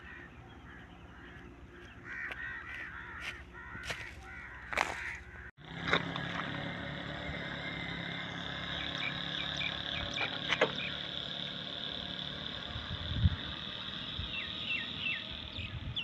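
Birds chirping and calling over a steady background hiss, broken by a few sharp clicks and a low thump about three quarters of the way through.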